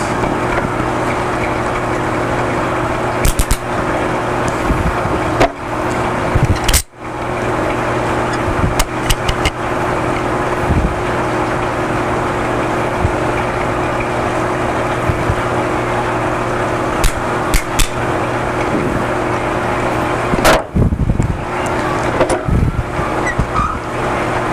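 Steady machine hum with a low drone, the constant equipment noise of the room, with a few small sharp clicks from pliers working a spring hose clamp onto the tubing. The sound drops out for a moment about seven seconds in.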